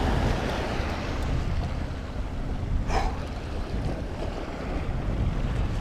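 Wind buffeting the microphone over waves washing against jetty rocks: a steady rush with a low rumble, and one brief sharper sound about halfway through.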